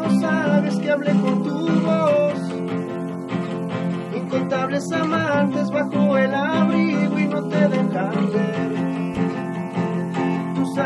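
Acoustic guitar played live, a song with chords, and a man's voice singing along over it.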